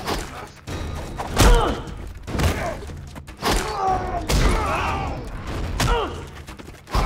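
Fight-scene blows landing as a series of heavy thuds about a second apart, several followed by short grunts from the fighters.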